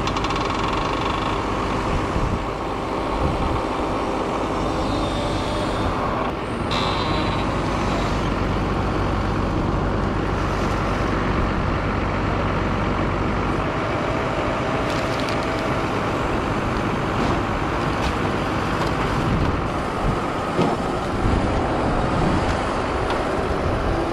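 An engine running steadily, with a few short knocks on top.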